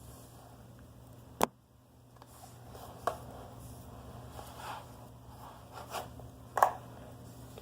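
Small handling noises while slime is being coloured with markers: four sharp clicks, the loudest about a second and a half in and near the end, with soft scraping and rustling between them.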